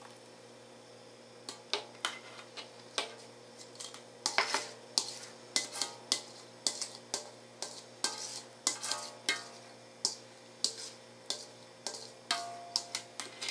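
Metal clinks and taps, roughly two a second, of a utensil against a stainless steel mixing bowl as the last of a gelatin mixture is scraped out into a mold. They begin about a second and a half in, and some ring briefly.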